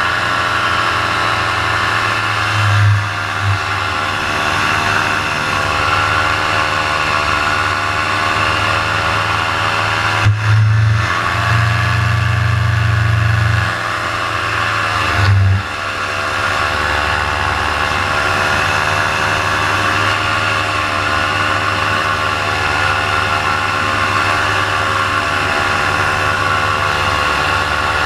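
Paramotor engine running at high throttle in flight, its pitch wavering slightly up and down as the motor begins to lose power. Short low rumbling surges come three times, the longest about ten seconds in.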